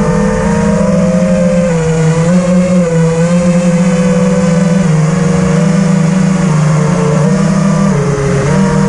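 Four Emax Eco 2207 1900kv brushless motors of an FPV quadcopter on a 4S battery, spinning Ethix S4 props, heard through the onboard GoPro Hero 5 Session. They give a steady, loud buzzing whine whose pitch keeps shifting up and down with the throttle, with a brief dip near the end.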